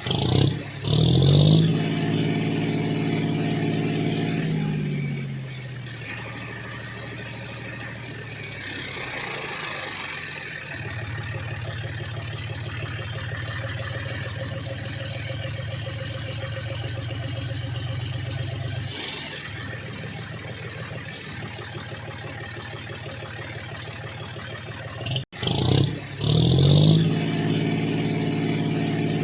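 Mini tractor engine running: a rev at the start that falls away over a few seconds, then a steady run. About 25 seconds in it cuts off abruptly, and the same rev and falling pitch come again.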